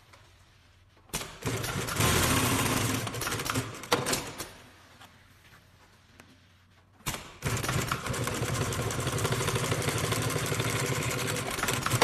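Computerised twin-needle walking-foot industrial sewing machine stitching through four layers of heavy car-trim material. It runs in two starts: a short run beginning about a second in, and a longer steady run from about seven seconds in.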